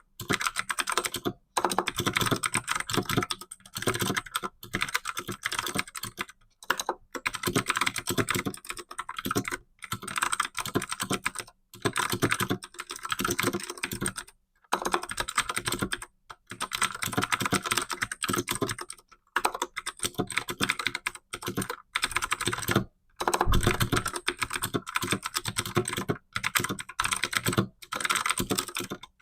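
Fast touch typing on a computer keyboard: rapid key clicks in runs of a second or two, broken by brief pauses.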